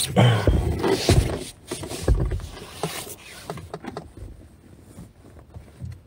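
A phone microphone being handled and brushed against a quilted nylon jacket: loud rustling with a few dull thumps over the first three seconds, then quieter fabric rustle.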